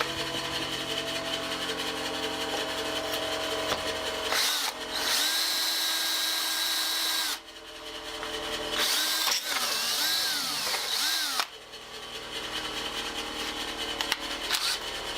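Electric hand drill boring a pilot hole through a broken, hardened steel bolt set in magnesium. The motor runs steadily, then speeds up and slows in pitch with the trigger, letting off briefly twice.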